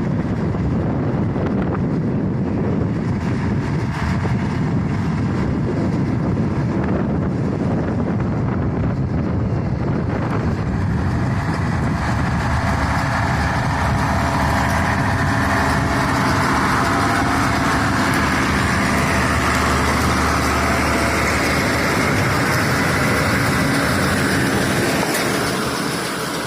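J.I. Case 1070 tractor running steadily while pulling a Case International 8465 round baler. A rough rumble at first, then from about ten seconds in a steadier engine note with a higher whine over it, easing off slightly near the end.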